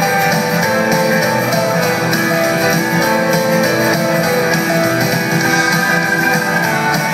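Live rock band playing on stage, guitars to the fore, heard from within the audience.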